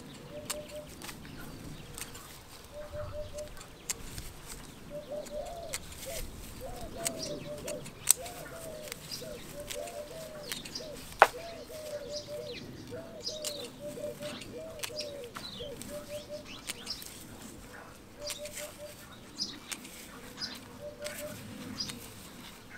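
Eurasian hoopoe calling again and again in short groups of three low notes, with small birds chirping high above it. Two sharp clicks stand out about a third and halfway through.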